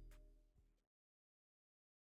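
The tail end of a trap beat fading out, with a last couple of hits over low bass, cutting off to dead silence a little under a second in.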